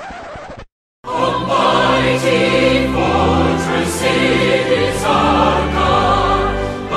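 Intro theme music with a choir singing, starting about a second in after a brief fade and a moment of silence.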